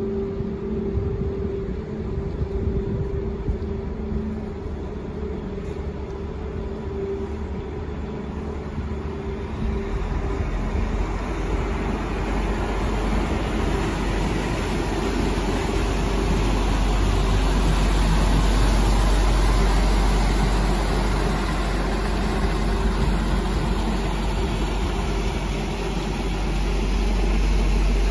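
Diesel engine of a large inland cargo barge running as the ship passes close by: a steady hum at first, then from about ten seconds in a heavy low rumble and churning propeller wash swell up as the stern goes past, loudest a little past the middle.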